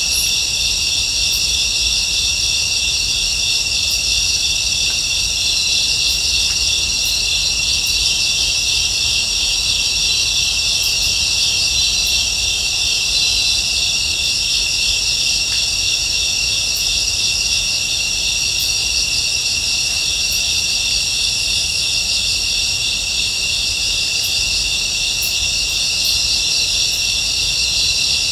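Steady chorus of insects, crickets among them, trilling in fast pulses, with a few faint high ticks over it.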